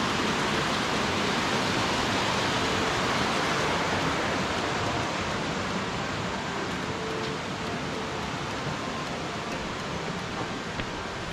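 Mountain stream running over rocks and small cascades, a steady rush of water that grows a little fainter in the second half.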